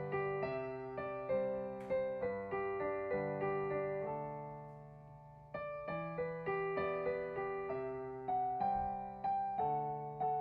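Solo piano-style keyboard music: a melody over chords, each note struck and fading. The playing pauses briefly about five seconds in, then picks up again.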